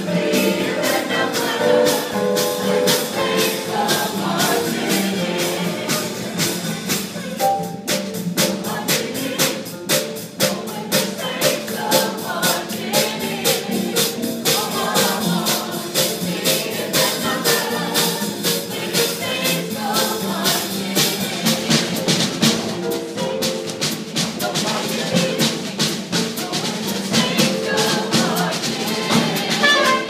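A group singing with a small jazz band's rhythm section, the horns silent, over a steady, sharp, hand-struck beat that becomes much stronger about eight seconds in.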